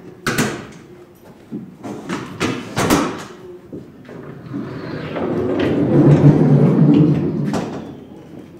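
Knocks and clatters in a workshop, then a rolling rumble that swells for a few seconds and dies away near the end, as of something heavy being slid or rolled.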